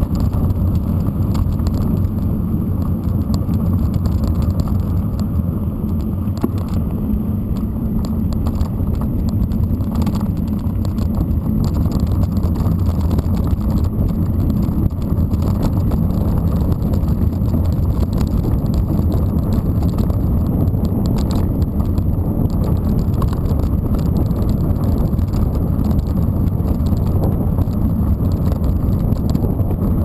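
Mountain bike rolling along a gravel road: a steady low rumble of tyres on the loose surface, with scattered light rattles and ticks from the bike.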